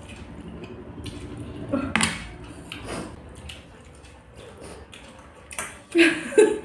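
Eating by hand from stainless-steel plates: fingers scraping and mixing food against the metal, with a few light clinks and scrapes. A brief voice near the end.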